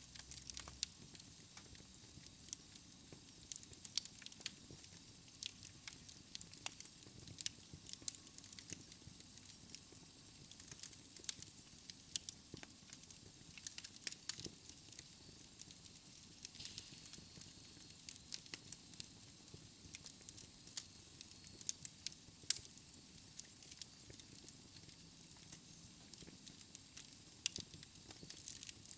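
Fire burning in a fireplace, crackling and popping at irregular intervals over a soft steady hiss and low rumble.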